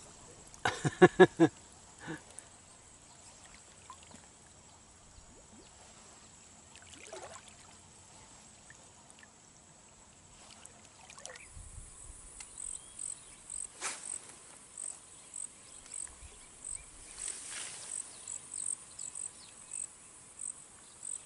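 Insects chirping: a steady high buzz, and from about halfway through a high chirp repeating about twice a second. About a second in, a short loud burst of five or six rapid pulsed calls.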